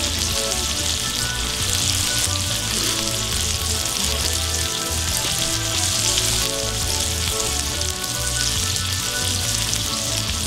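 Beef burger patties sizzling steadily in their rendered fat on a hot flat-top griddle.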